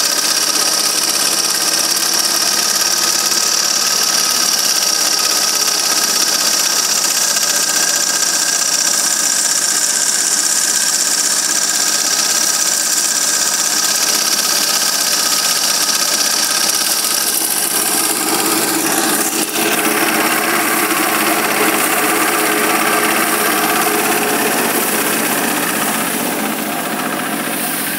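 A small engine running steadily, its sound changing slightly about two-thirds of the way through.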